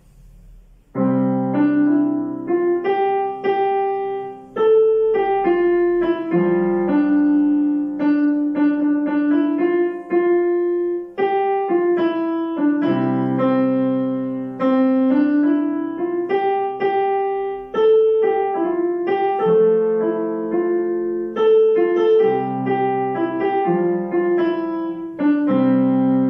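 Solo piece played on a Yamaha digital piano. After a short pause about a second in, a melody moves over held low chords, and it closes on a sustained chord near the end.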